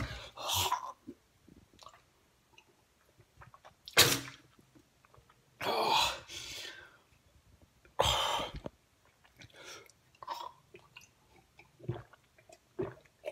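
A man with a mouthful of sour citric acid powder blowing and sputtering: four short, harsh blasts of breath from the mouth a couple of seconds apart, then quieter mouth clicks and smacks.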